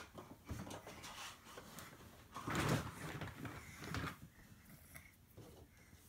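Faint handling noises as a baby moves about and handles toys: soft bumps and rustles, the loudest a brief bump about two and a half seconds in.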